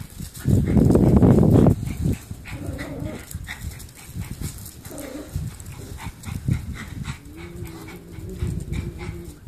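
Small dogs vocalising as they play with a cat: a loud rough burst about half a second in, lasting over a second, then short pitched calls and a longer held call near the end, with light clicks throughout.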